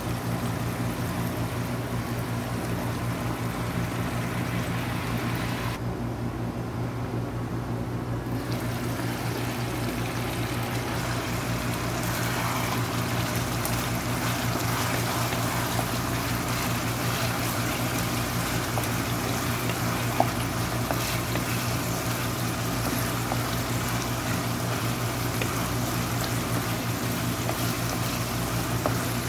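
Chicken and pineapple in a sweet soy sauce bubbling steadily at a simmer in a frying pan, over a steady low hum. From about halfway through, a wooden spatula stirs and scrapes through the pan, with one sharp tick later on.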